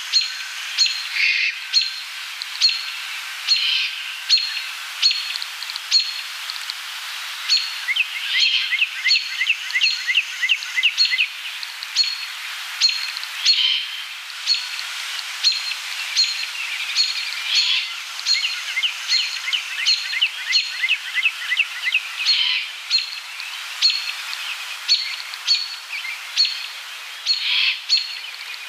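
Small songbirds chirping over and over in quick, sharp notes, with short bursts of rapid trills mixed in.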